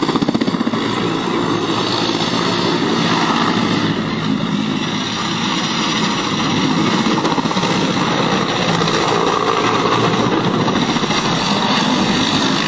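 Loud, steady engine noise with a rapid low pulsing and a hiss above it.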